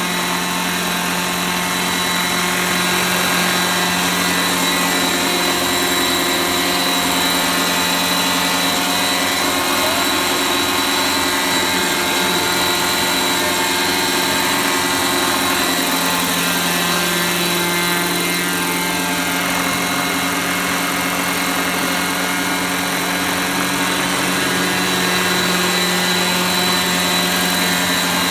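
Century Condor 830 gasoline R/C helicopter's two-stroke engine and rotors running steadily as it hovers low, running smoothly. The pitch shifts slightly a few times partway through.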